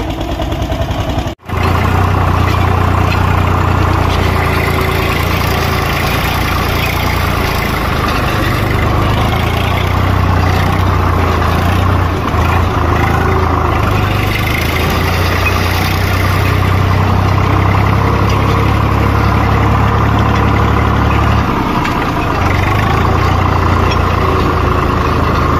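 Diesel tractor engine running steadily as it drives over rough ground, heard from the driver's seat, with a brief cut in the sound about a second and a half in. The deep engine note shifts slightly near the end.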